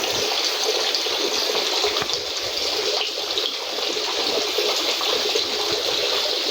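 Steady rushing of flowing water, an even hiss with no let-up.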